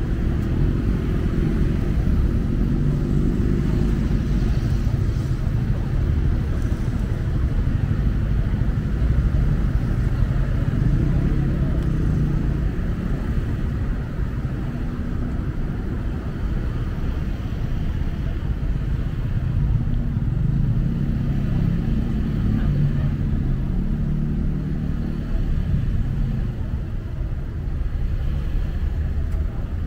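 Car driving with a steady low engine and road rumble that swells and eases slightly.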